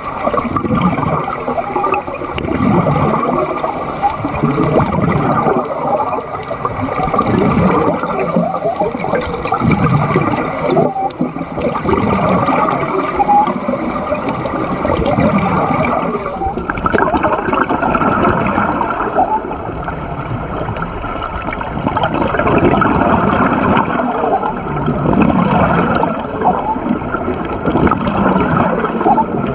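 Scuba divers' exhaled air bubbling and gurgling out of their regulators, heard underwater.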